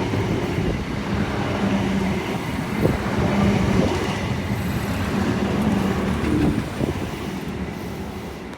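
Train passing slowly: a steady rumble with a low hum and a few knocks of wheels running over the track, fading near the end.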